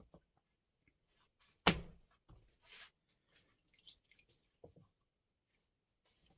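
Whetstones being handled at the bench: a sharp knock about two seconds in as something hard is set down, then brief scraping sounds and a softer knock.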